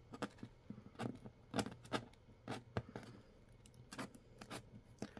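A small handheld cutter slitting packing tape along the seam of a cardboard box: a run of short, irregular scratches and scrapes.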